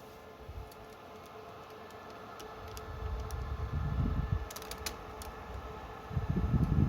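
Dell PowerEdge R730 rack server's cooling fans running steadily at idle, a constant hum with a steady whine. Low rumbles come in about halfway through and again near the end, with a few faint clicks between them.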